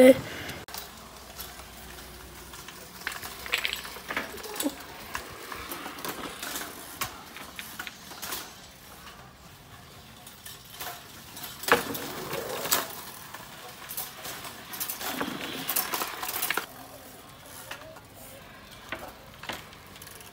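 A small child's bicycle with training wheels rattling and clicking as it is ridden over concrete, with scattered sharp clacks, the loudest about twelve seconds in.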